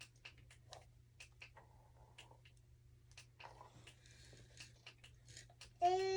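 Quiet room with faint, scattered small clicks and rustles of handling. Near the end, a voice starts one loud held note.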